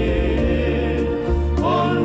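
Multi-tracked a cappella hymn: one man's voice layered in several harmony parts, holding sustained chords, with a move to a new chord and a short upward slide in the top part about three-quarters of the way through. A faint click marks each beat.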